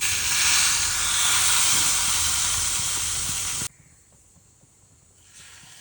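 Hot tempering (thalippu) hitting the rasam: a loud, steady sizzling hiss that cuts off suddenly about three and a half seconds in.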